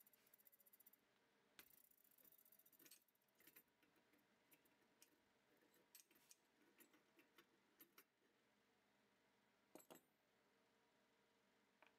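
Faint metallic clicking and clinking from a brake-line flaring tool being worked by hand: quick fine ticks as the yoke's feed screw is turned, then scattered clinks, with the sharpest double clink about ten seconds in as the yoke comes off the flaring bar.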